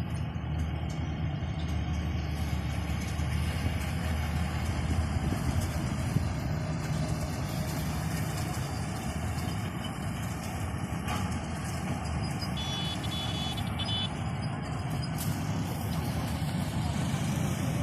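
Vishal 435 combine harvester's diesel engine running steadily with a deep, even rumble. A brief high beeping tone sounds about twelve seconds in.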